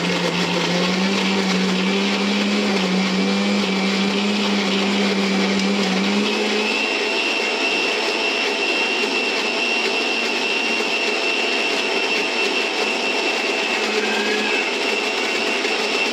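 Electric kitchen mixer grinder running steadily, grinding frozen ice-cream mixture in its steel jar. About six seconds in its tone changes: the low hum drops away and a higher whine comes in.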